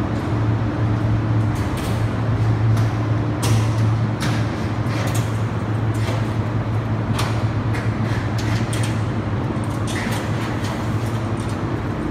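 A steady low hum over a noisy background, broken by irregular light knocks and clanks as the sheet-metal panels and metal frame of an air-conditioner housing are handled during assembly.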